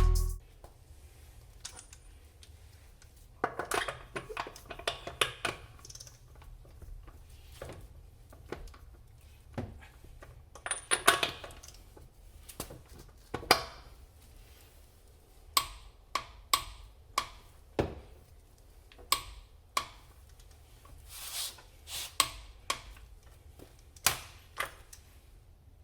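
Scattered metallic clinks and clanks of hand tools and metal parts being handled, some in quick clusters, with quiet gaps between.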